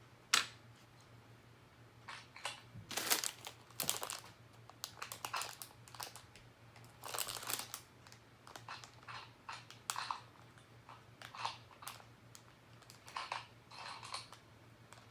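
Plastic LEGO pieces clicking and rattling as they are handled and sorted, mixed with crinkling of a plastic parts bag. It comes in irregular bursts, with a sharp click about half a second in as the loudest.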